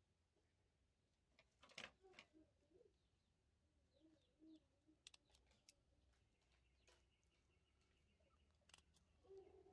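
Near silence, with a few faint soft coos and some light clicks scattered through it.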